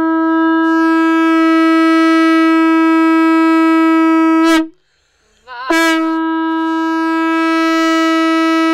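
Large white conch shell (shankh) blown in two long, steady blasts on one unchanging note, loud and bright. The first blast cuts off about four and a half seconds in, and the second starts about a second later.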